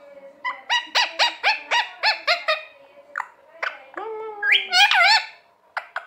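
Rose-ringed parakeet (Indian ringneck) calling: a rapid string of short, sharp calls, about four a second, then a few single calls and a longer wavering call near the end.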